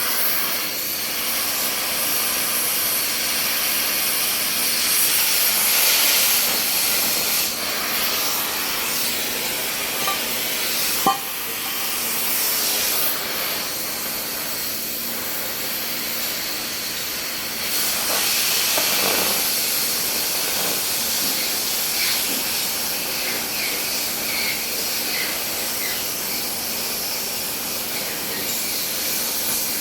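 Welding: a steady, fluctuating hiss with a single sharp click about eleven seconds in.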